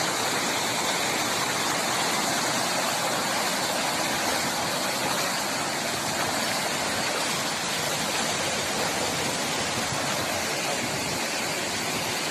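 Cyclone storm-surge floodwater rushing and churning across a road and through trees: a steady, unbroken rushing of water.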